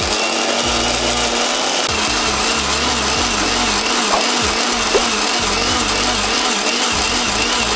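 Electric mixer grinder running steadily at full speed, grinding a wet masala of chillies, garlic, ginger, onion and nuts into a smooth paste in its stainless-steel jar. Its motor pitch wobbles slightly and regularly as it works.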